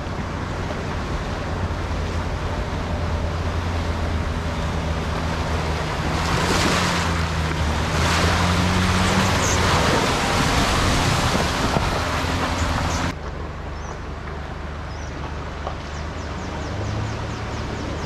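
Four-wheel drive's engine running steadily under a loud rush and splash of water, as in a creek crossing. The water noise is heaviest from about six to thirteen seconds in, then drops suddenly to a quieter engine sound.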